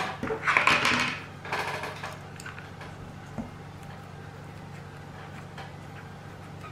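Rustling and handling of craft materials, an artificial flower and a hot glue gun, in short bursts over the first two seconds, then a low steady hum with one small click.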